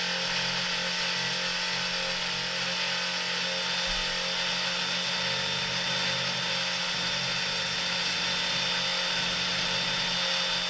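CNC3018 router's small DC spindle motor running steadily with a V-shaped engraving bit. It gives an even hum and a thin high whine, spinning just above a copper-clad PCB while the Z-axis zero is being set.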